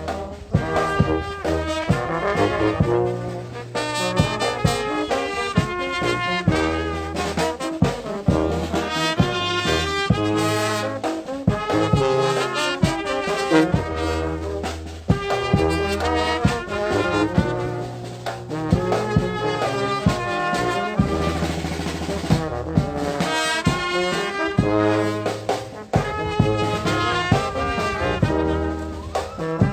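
Marching brass band playing: trumpets and trombones over a sousaphone's low held notes, with frequent drum beats.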